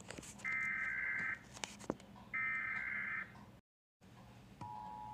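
Emergency Alert System SAME header: two bursts of buzzing digital data tones, each about a second long with a second's gap between them. After a brief dropout, the steady two-tone EAS attention signal starts near the end. Together they herald a tornado warning broadcast.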